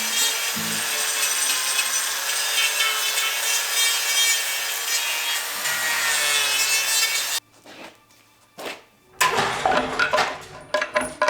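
A power saw cutting through wood in one steady run of about seven seconds that stops abruptly. After a short pause, a second, shorter and choppier burst of cutting follows near the end.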